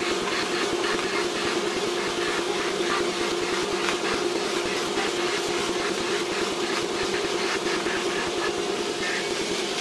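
Bandsaw running with a steady hum while it cuts a maple strip into small blocks, one after another.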